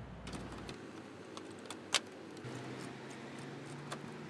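Scattered light clicks and rattles of a hand ratchet and plastic bumper trim being worked while the last 10 mm bolt comes off the bumper bracket, with one sharper click about two seconds in.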